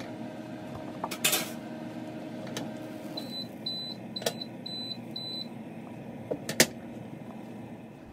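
A microwave oven hums steadily, then stops about three seconds in and gives five short high beeps to signal the end of its cycle. A few sharp clicks are heard along the way.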